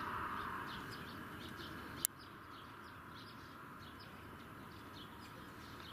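Small birds chirping repeatedly over a steady background hiss, with a single sharp click about two seconds in.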